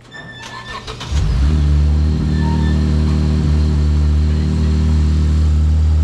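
A car engine starting about a second in, then running steadily and loudly.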